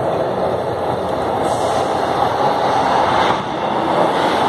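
Metro train running on the rails: a steady rumble of wheels and traction motors that grows slowly louder, then shifts abruptly about three and a half seconds in.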